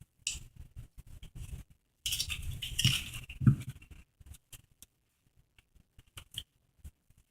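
Nacho tortilla chips crunching and being chewed, with small clicks and scrapes; the loudest, densest crunching comes about two to four seconds in, then only scattered faint ticks.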